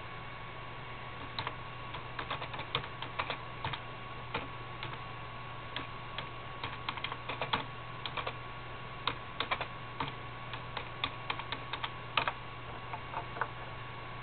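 A run of irregular, quick light clicks, several a second in uneven clusters, starting about a second and a half in and dying away near the end, over a steady electrical hum.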